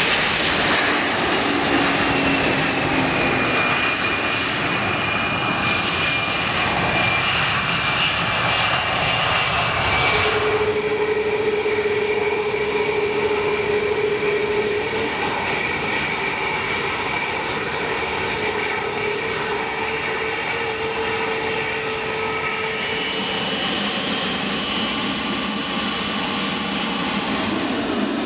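Jet cargo aircraft engines: an Antonov An-124's four turbofans whining steadily on final approach. About ten seconds in the sound changes abruptly to a McDonnell Douglas MD-11 freighter's engines on touchdown.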